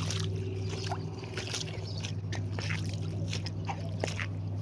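Electric scooter motor humming steadily, with light splashing and trickling of floodwater.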